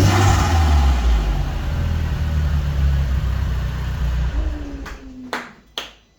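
VW Polo 9N3 GTI's 1.8-litre turbocharged four-cylinder engine running and being revved with an open cone filter, the intake and turbo whistle loud, with a rush of hiss right after a blip at the start. The engine sound ends about four seconds in, followed by a few sharp knocks.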